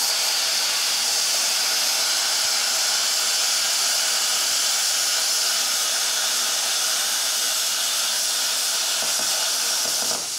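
Luch Profi CUT-50 air plasma cutter cutting metal at about 45 amps: a steady, loud hiss of the plasma arc and air jet, with a brief dip near the end. The arc is cutting cleanly at this setting.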